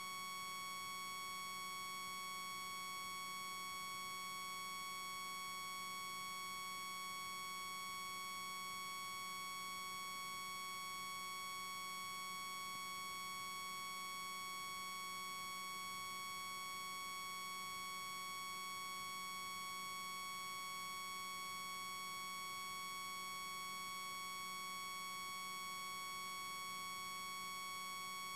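A constant electronic tone, a steady whine with a stack of overtones that never changes in pitch or loudness: unwanted noise on the recording that covers the surrounding sounds.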